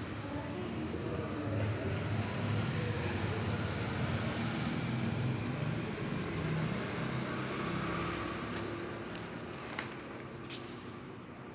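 Low rumble of a passing vehicle, swelling over the first few seconds and then fading away. Near the end come a few light clicks from the notebook being handled as its pages turn.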